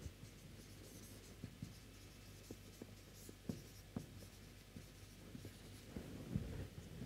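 Marker pen writing on a whiteboard: faint, scattered short scratching strokes and light taps as letters are written, over a low steady hum.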